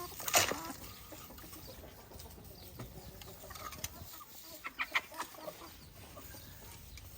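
Free-range chickens clucking, with short scattered calls. One loud sharp sound comes about a third of a second in, and a quick run of sharper clucks comes around the middle.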